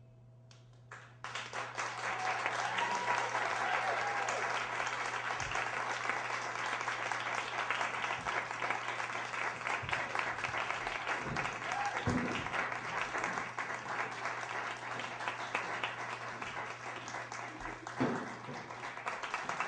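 Audience applause with scattered whoops and cheers, breaking out about a second in after a moment of silence and holding steady.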